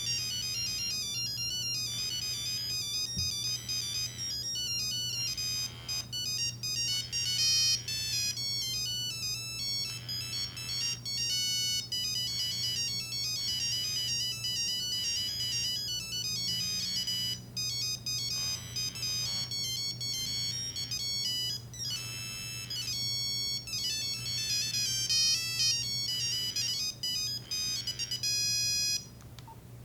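Nokia 3395 mobile phone playing a ringtone through its small speaker: a quick melody of electronic beeping notes that stops near the end.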